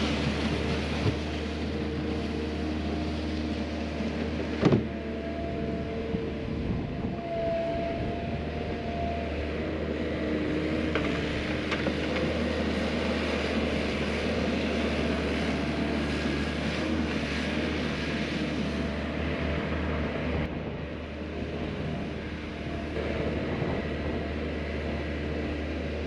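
Skid steer loader's diesel engine running steadily under work, with one sharp clunk about five seconds in.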